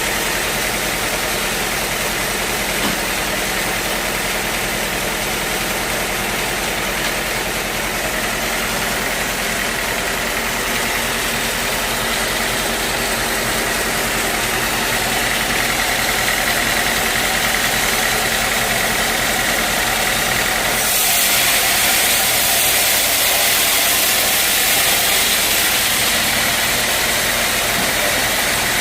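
Sawmill machinery running steadily: an engine with a constant hiss over it. About two-thirds of the way in the sound changes abruptly, the hiss growing louder and brighter.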